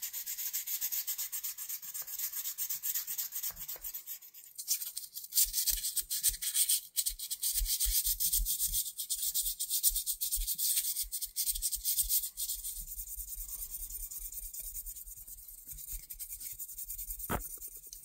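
Fine sandpaper on a small wooden block rubbed in quick back-and-forth strokes over the stainless steel tools of a vintage Victorinox Fisherman Swiss Army knife, polishing them brighter. The strokes are strongest in the middle, and a light click sounds near the end.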